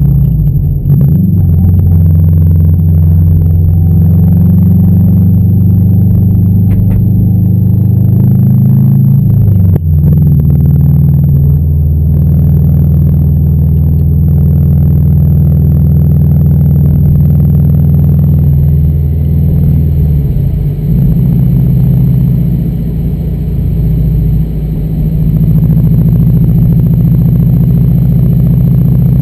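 2011 Subaru WRX's turbocharged flat-four engine droning steadily, heard from inside its cabin while driving, with its pitch shifting about a third and two-thirds of the way in, mixed with road noise.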